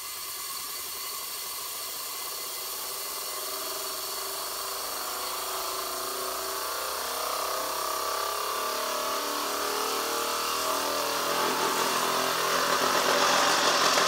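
Copper Hero's engine (aeolipile) spinning on compressed air: a steady hiss from its jets with a whir that rises in pitch and grows louder as it speeds up. Near the end the sound turns uneven and pulsing, the wobble of the sphere running out of balance at speed.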